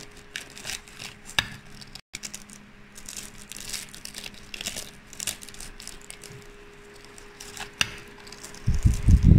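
Fork and spoon breaking through the crisp puff-pastry crust of a chicken pot pie: scattered crackles and crunches as the flaky pastry cracks apart. A louder, low rumbling noise comes in near the end.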